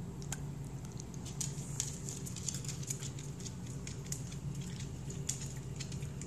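Irregular light clicks and crunches from a pug chewing a small treat and walking on a hardwood floor, its claws ticking on the boards, over a steady low hum.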